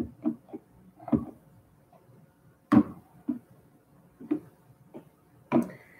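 Chunky plastic toy blocks being set down on a wooden tabletop: a string of about eight irregular knocks and clacks, the loudest near the middle.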